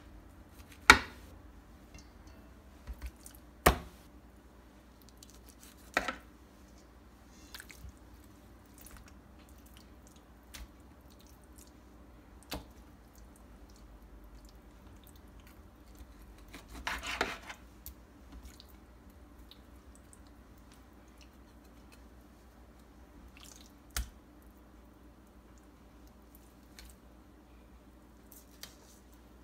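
Raw chicken breasts and utensils being handled against a glass baking dish and a stainless steel bowl: a few sharp clicks and knocks at irregular intervals, the loudest about a second in, and about a second of rustling handling noise past the middle.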